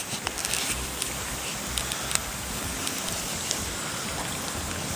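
Wood campfire burning close by: a steady hiss with a few faint crackles and pops.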